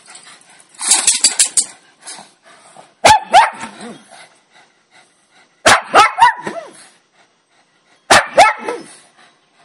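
Dogs barking and yipping in play, in about four short bursts a couple of seconds apart, each a quick cluster of sharp barks.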